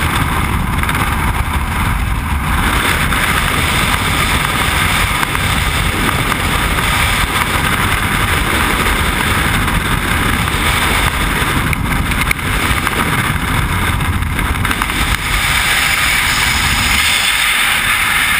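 Loud, steady rush of freefall wind buffeting the microphone of a skydiver's body-worn camera.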